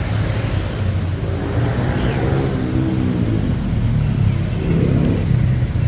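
Street traffic: motor vehicles passing close by, their engines running under a steady low rumble of road noise.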